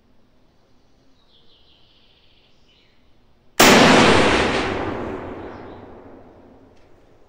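A single rifle shot from a Mauser M48A in 8x57 IS about three and a half seconds in, firing a handload of period bullets and powder. A long echo dies away over about three seconds.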